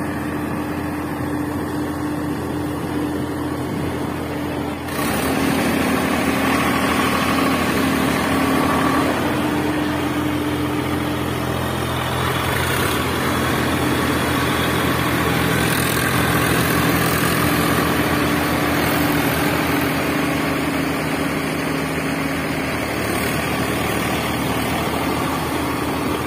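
An engine running steadily at idle, a low even hum, which grows louder about five seconds in.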